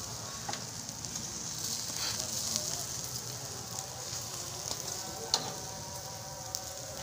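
Skewered quail and meat sizzling over a charcoal grill, a steady hiss with scattered crackles and pops, one sharp pop about five seconds in.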